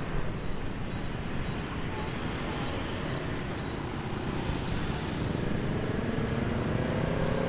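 Steady city street traffic noise. In the last couple of seconds one vehicle's engine grows louder and rises slightly in pitch as it comes closer.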